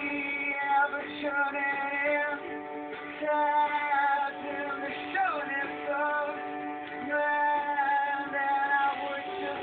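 Music with singing playing from a television.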